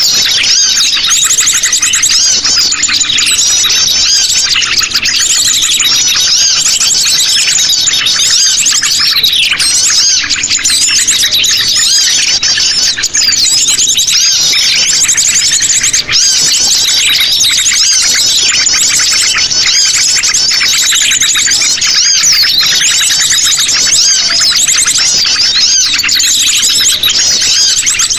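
A loud, dense chorus of many birds known locally as sogon, calling busily at once: overlapping chirps and short falling whistles with no pause, as used in a lure recording to attract wild birds.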